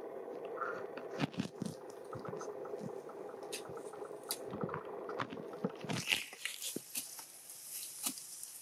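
A long-handled digging tool chopping and scraping into loose dry soil: a series of irregular crunching strikes. A steady hum sits under the first part and gives way to a high steady hiss about six seconds in.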